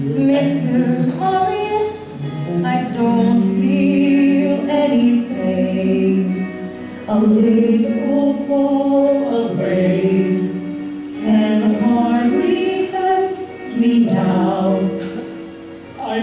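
A young man singing a slow musical-theatre ballad, holding long notes with vibrato, over instrumental accompaniment.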